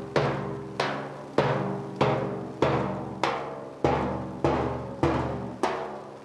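Large marching bass drum beaten in a steady marching beat, a little under two strokes a second, each stroke ringing out before the next.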